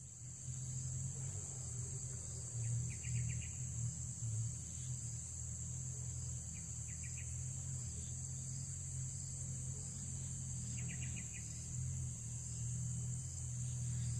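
Insects droning steadily at a high pitch over a low steady rumble, with three short rapid trills about four seconds apart.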